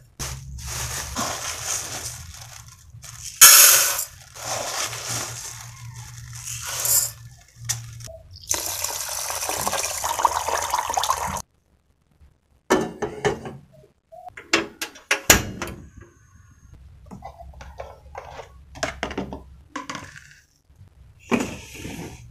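Water splashing and pouring in a stainless steel pot, in several long noisy stretches. After that the pot is handled and set down on a gas stove, with a series of short metal knocks and clinks.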